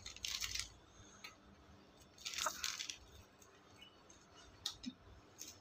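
Small clear plastic accessory bag crinkling in the hands as it is handled and opened. There are two short crinkly bursts about two seconds apart, then a few light clicks near the end.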